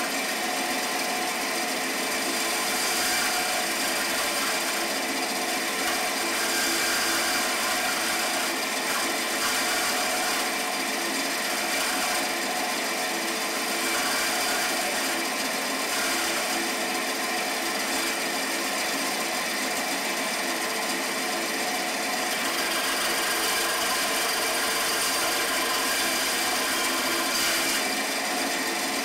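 Small bench-mounted bandsaw running steadily, its blade cutting out the gaps between the teeth of a plywood gear blank.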